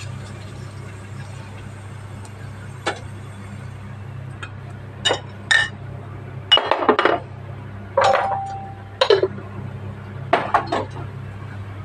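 Metal spoon and stainless steel bowls clinking and knocking in scattered strikes, one ringing briefly about two-thirds of the way in, over a steady low hum.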